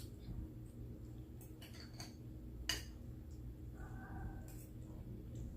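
Quiet eating sounds: a few scattered clicks and taps of cutlery on a plate, and chewing, over a low steady hum.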